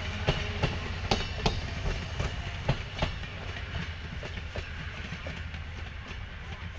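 Amtrak passenger coaches rolling past, with a steady rumble and sharp wheel clicks over the rail joints. The clicks come thick in the first few seconds, then thin out and fade as the last car passes and the train pulls away.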